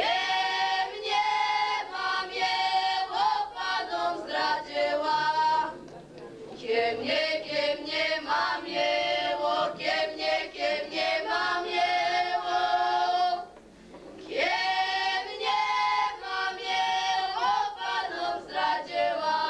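A group of six girls singing unaccompanied in Polish highland folk style, in long sung phrases with short pauses for breath about six seconds in and again about thirteen to fourteen seconds in.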